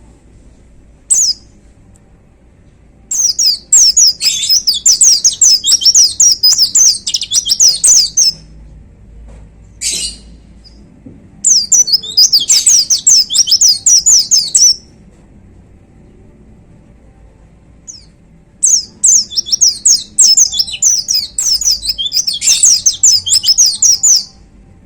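White-eye (pleci) singing: three long runs of rapid, high twittering song of several seconds each, with short single calls in the pauses between them.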